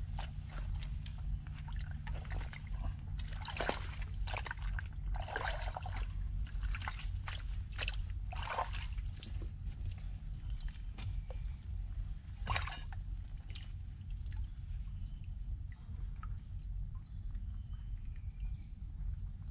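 Wet mud squelching and sloshing as a hand and a metal crab hook are worked down into a crab burrow in mangrove mud: a run of short wet squelches, thick in the first half and fewer later, over a steady low rumble.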